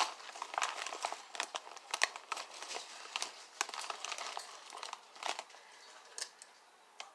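A plastic chip bag crinkling and rustling in irregular crackles as a hand rummages inside it for chips. The rustling thins out over the last couple of seconds.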